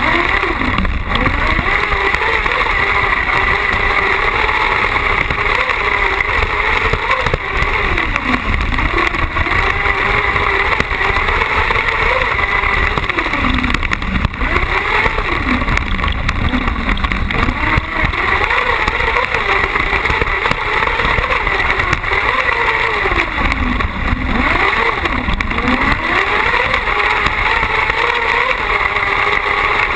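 Carcross buggy's engine racing on a dirt track, heard from onboard: the revs repeatedly drop and climb again as the car lifts off and accelerates through the corners and straights.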